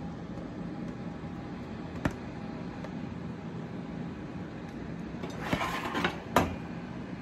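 Dishes handled on a glass-top stove: a single clink about two seconds in, then a plate scraping across the cooktop and a sharp knock near the end, over a steady low hum.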